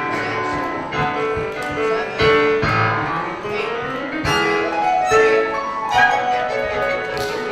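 Instrumental music led by piano, a run of distinct notes with held tones between them.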